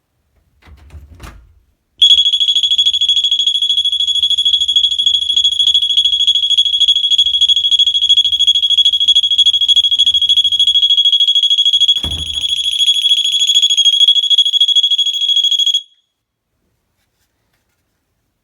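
SABRE 120 dB wedge door stop alarm going off, set off by the door pressing on the wedge: a loud, high-pitched steady tone that starts about two seconds in and cuts off suddenly some fourteen seconds later. A soft thump comes just before it starts, and a knock about twelve seconds in.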